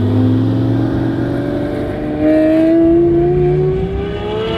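Lamborghini engines accelerating hard, heard from inside the cabin: one long, steady rise in pitch through a single gear, getting louder about two seconds in.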